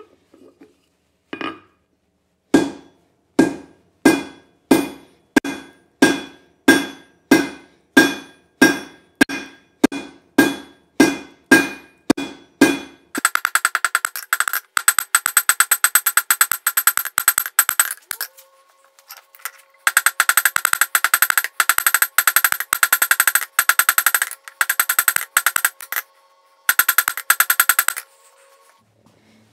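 Hand hammer striking a hot half-inch round steel bar on an anvil to draw out a taper. It starts as an even run of blows about one and a half a second, then from about halfway turns to much faster, lighter blows with a high ringing, stopping briefly twice.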